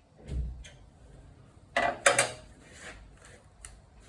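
Hands working on a small engine's metal parts: a dull knock just after the start, then a short cluster of sharp metallic clicks and clinks about two seconds in, and a few faint ticks after.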